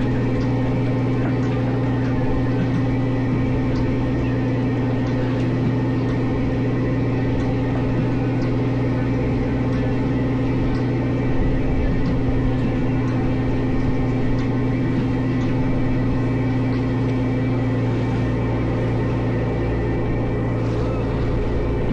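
Crab fishing boat's engine running with a steady, even drone.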